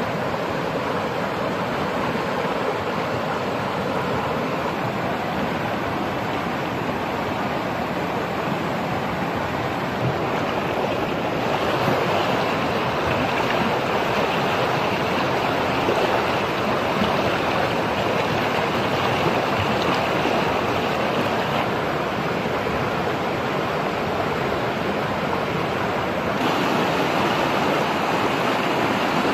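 Fast-flowing stream rushing over rocks in white-water rapids, a steady, even rush of water. Its tone changes abruptly about twelve seconds in and again near the end.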